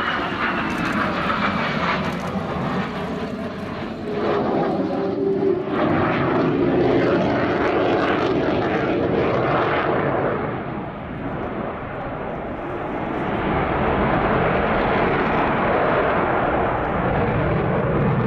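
Lockheed Martin F-22A Raptor's twin F119 turbofan jet engines passing close by: loud, continuous jet noise with a falling whine in the first couple of seconds. The noise eases briefly, then grows louder and deeper as the jet turns away on afterburner.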